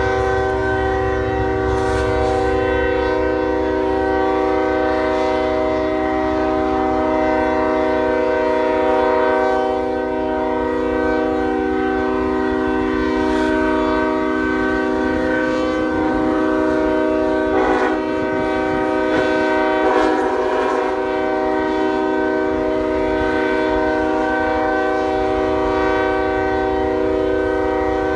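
Train air horn blowing one continuous multi-note chord, held steady without a break, over a low rumble from the train.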